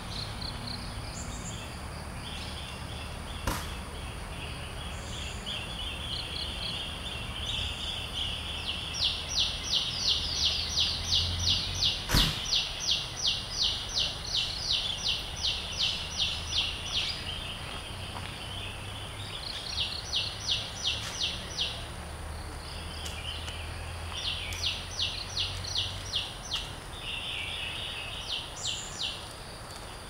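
Forest ambience: a high, rapid pulsing call, about four pulses a second, comes in several bursts, the longest lasting about eight seconds. It sits over a steady high insect-like drone, with a sharp click about twelve seconds in.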